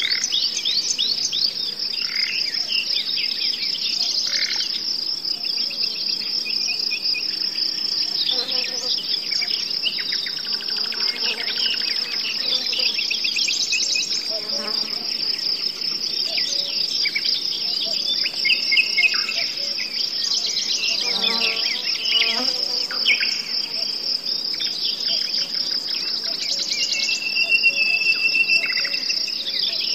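A continuous high-pitched insect trill, cricket-like, with songbirds chirping and trilling over it throughout, and one held whistled note near the end.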